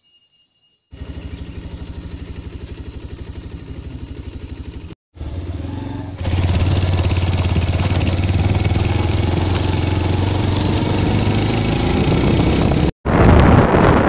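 A vehicle engine running with a fast pulsing beat while travelling over a rough, rocky dirt road. It starts about a second in, breaks off briefly twice and gets louder from about six seconds in. Wind buffets the microphone near the end.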